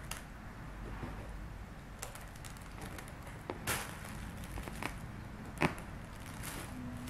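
Kittens scampering and pouncing about a play tunnel on a carpet, making scattered soft taps and a short rustle, with one sharper knock near the end.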